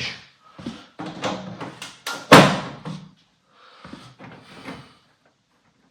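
Car's rear bumper cover being handled and pushed into place: a run of knocks and rattles, with one loud thud a little over two seconds in.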